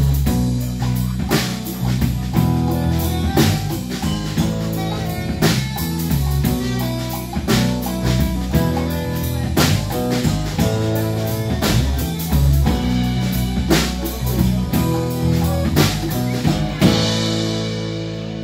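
Live band playing an instrumental passage: a drum kit keeping a steady beat under bass and guitar. About 17 seconds in a cymbal crash and a final chord ring out and fade, the song coming to its end.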